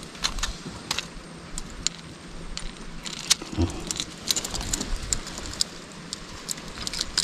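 Irregular light clicks and clinks of fishing tackle being handled while a freshly landed fish, hooked through the eye by the lure, is unhooked.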